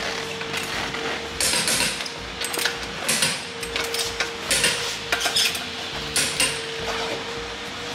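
Torque wrench and socket clicking and clinking on a car's wheel nuts as each nut is checked for the specified tightening torque. The clicks are sharp and irregular, with a steady hum underneath.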